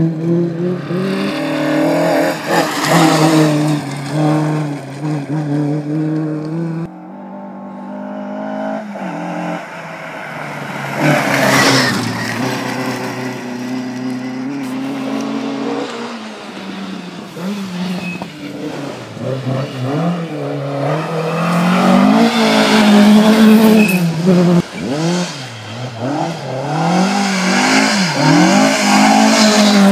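Mk2 Ford Escort rally cars passing one after another at speed on a gravel stage, their engines revved hard, the pitch climbing and dropping as the drivers accelerate and lift. The sound changes abruptly about a quarter and about half of the way through as one pass gives way to the next.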